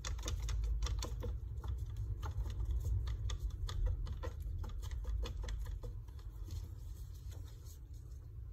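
A wooden stick stirring a mixture in a paper cup, knocking and scraping against the cup's side in quick, irregular clicks that grow fainter near the end.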